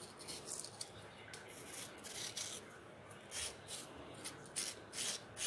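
Small knife blade scraping the soft red flesh off a watermelon rind, a series of short, faint raspy strokes that come closer together and louder in the second half.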